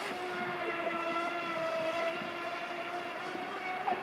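RC boat motor running with a steady, high-pitched whine.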